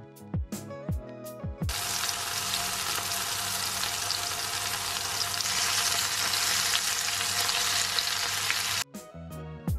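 Beef burger patties sizzling in hot grease in a cast-iron skillet, a dense steady crackling hiss that starts abruptly about two seconds in and cuts off suddenly near the end. Background music with plucked notes and a beat plays before and after it.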